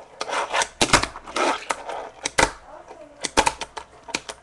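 Tech Deck fingerboard clattering on a wooden tabletop: an irregular run of sharp clicks and taps as the board is popped and lands during ollies and kickflips, with short scuffs of the wheels and board sliding between them.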